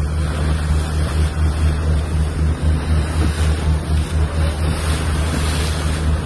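Boat's engine running with a steady low drone, under wind buffeting the microphone and the wash of water along the hull.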